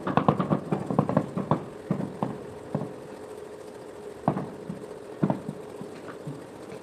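Knocks of a wooden handle tapping a freshly laid cement floor tile to bed it into the wet mortar. A quick run of taps comes first, then a few single taps spaced out.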